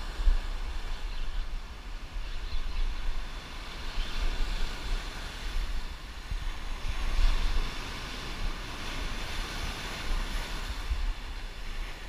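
Surf breaking and washing up the shore, with wind buffeting the microphone in a low rumble; the wash swells loudest about seven seconds in.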